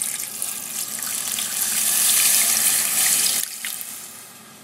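Water poured from a glass jug into a stainless steel pot over raw chicken pieces, splashing steadily and swelling louder before cutting off about three and a half seconds in, followed by one short last trickle.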